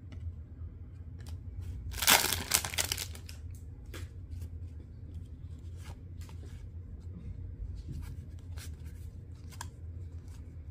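Trading-card pack wrapper torn open with a crinkly rip about two seconds in, followed by faint clicks and slides of the cards being flipped through.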